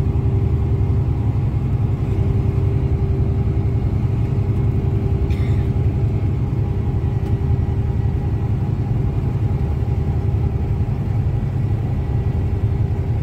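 Steady low rumble of a Mercedes coach bus cruising at highway speed, heard from inside the passenger cabin: engine and road noise with a constant hum.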